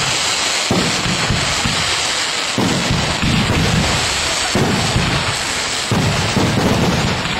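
Aerial fireworks shells bursting overhead: a string of deep booms, one about every one to two seconds, over a steady hiss.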